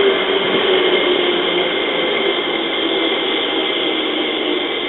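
JR 205 series electric train moving slowly along a station platform: a steady rumble and wheel noise, with a faint tone that falls slightly over the first two seconds.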